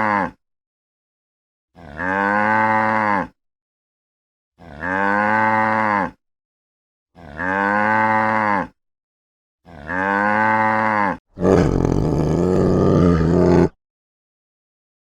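An animal's long, low call that rises and falls in pitch, repeated four times at even intervals with dead silence between, then a noisier, rougher call of about two seconds near the end.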